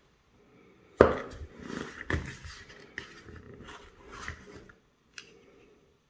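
Handling noise from a small intercom unit being taken out of its cardboard box and insert: a knock about a second in, then scattered clicks and rustles, and one short sharp click near the end.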